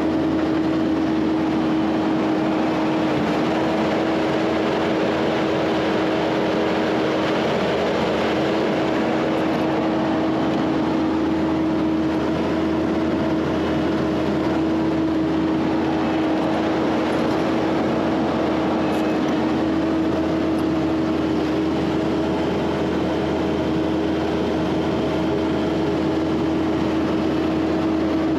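Diesel engine of a skid steer loader running steadily under work while grading dirt, with a constant engine tone and no change in speed.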